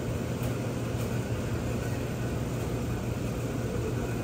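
Steady low mechanical hum and rumble with no distinct events.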